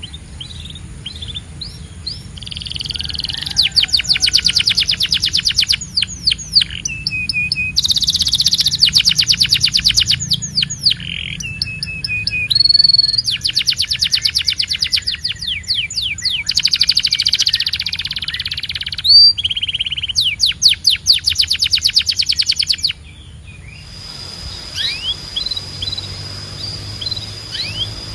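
Domestic canary singing: a string of loud, fast trilled phrases, each a rapid run of repeated notes, with brief pauses between them. About 23 seconds in the trilling stops, and only fainter, scattered chirps follow over a steady high tone.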